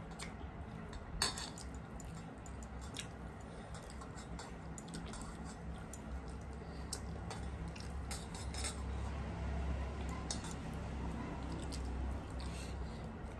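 Eating rice by hand from stainless steel plates: scattered light clicks and scrapes of fingers against the metal as the rice is mixed, the sharpest about a second in, with chewing.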